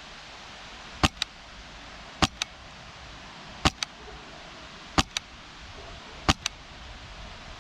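PolarStar Kythera HPA airsoft rifle with a foam-filled silencer firing five single shots, about one every 1.3 seconds. Each shot is a sharp crack followed a fifth of a second later by a quieter second click.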